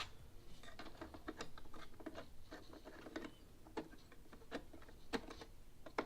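Faint, irregular small clicks and scrapes of a RAM module being worked into a memory slot in an iMac's RAM compartment, with a few sharper clicks near the end.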